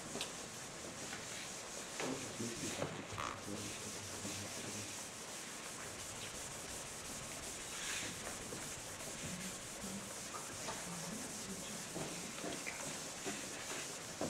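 A damp sponge wiping a chalkboard clean: a steady rubbing swish of repeated strokes across the board.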